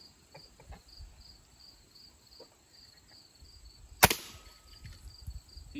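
A single shot from a scoped pellet gun, one sharp crack about four seconds in that hits and kills a bullfrog. Crickets chirp in a steady pulsing rhythm throughout.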